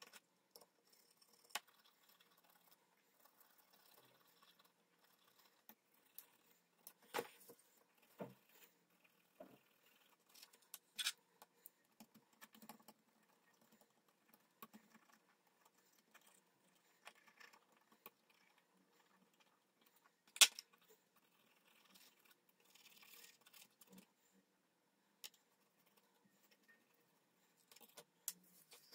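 Scattered small clicks and taps of plastic parts being handled as an LED strip is worked out of a car's third brake light housing, with one sharper click about twenty seconds in.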